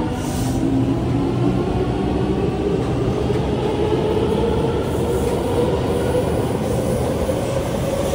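SMRT C751B metro train's IGBT-VVVF traction motors whining as it accelerates, several tones rising slowly in pitch over the rumble of the wheels.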